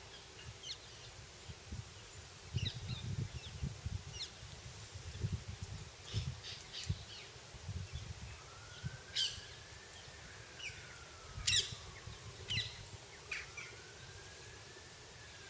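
Birds chirping in short calls, over low rumbles of wind on the microphone. From about halfway a distant siren wails, one thin tone slowly rising and falling twice.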